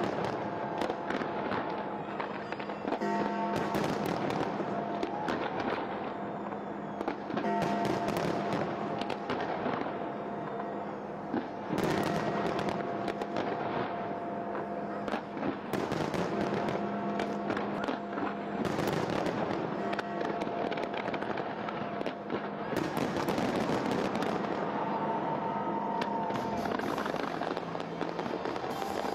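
Aerial fireworks display: many bangs and crackling bursts overlapping one another, with music playing underneath.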